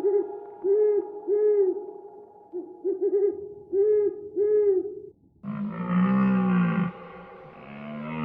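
Owl hooting: short hoots in uneven groups, some doubled or tripled, over a steady background drone. About five seconds in the hoots stop and a lower, drawn-out sound takes over in two long swells.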